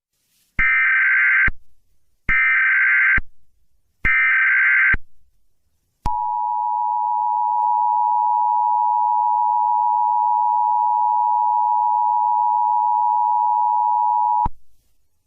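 Emergency Alert System SAME header: three short, loud bursts of screeching data tones, each about a second long. The EAS two-tone attention signal follows and holds steady for about eight seconds before cutting off. Together they mark the start of an emergency alert, here a civil danger warning.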